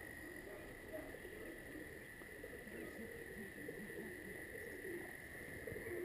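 Faint outdoor background with frogs calling: irregular low, wavering calls over a steady high drone.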